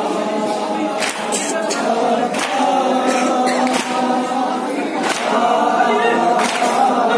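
Group of men chanting a noha in unison with no instruments, with a sharp slap of hands striking chests (matam) about every second and a half, keeping time with the chant.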